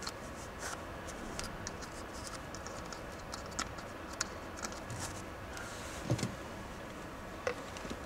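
Faint scratches and small clicks of hands handling the plastic dust container and mesh filter of an Einhell cordless handheld vacuum, with a soft knock about six seconds in.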